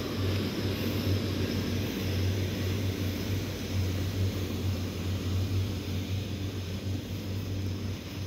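A steady low motor drone, holding level without rising or falling, under an even hiss.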